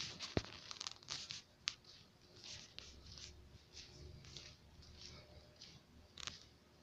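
Faint scuffing footsteps on a greenhouse floor, about two or three a second, with a couple of sharper clicks in the first two seconds.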